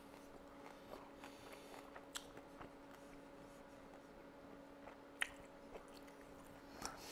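Near silence: quiet room tone with a steady faint hum and a few faint clicks, the sharpest about five seconds in.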